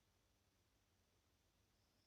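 Near silence: faint room tone with a low steady hum and hiss.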